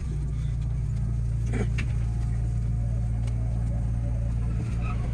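Steady low machine hum from the standing 207 series electric train's onboard equipment, which starts abruptly. Near the end a falling electric whine begins as another train approaches on the next track.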